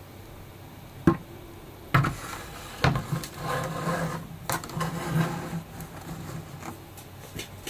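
Handling noise from a large FDM 3D-printed plastic figure: three sharp knocks about a second apart, then a couple of seconds of scraping and rubbing as it is moved about and stood on a desk.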